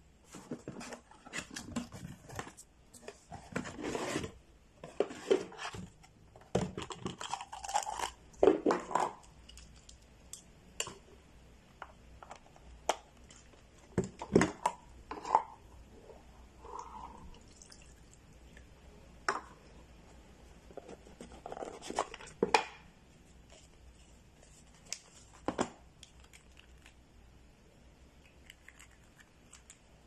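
Cardboard boxes and packaging handled and opened by hand: irregular rustles, scrapes and taps, busiest in the first half and thinning out to occasional knocks later.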